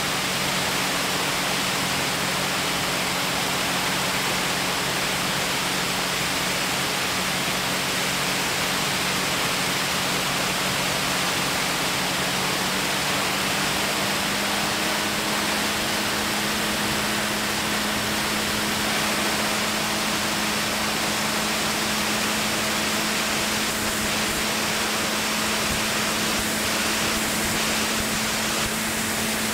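Aircraft cabin noise in flight: a steady rush of airflow with a constant engine drone, its pitch stepping up slightly about halfway through.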